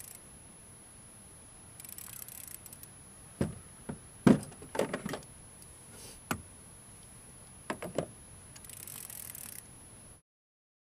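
Scattered knocks and clunks of gear handled against a plastic fishing kayak, the loudest a little past four seconds in, as a lip-grip tool is got out with a fish on the line. Short stretches of hiss come between them, and the sound cuts off about ten seconds in.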